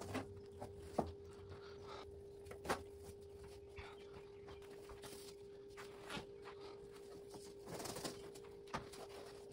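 Faint rustling and swishing of foam-backed headliner fabric being draped and shifted over a headliner board, with a few light sharp taps and a louder swish about eight seconds in, over a steady faint hum.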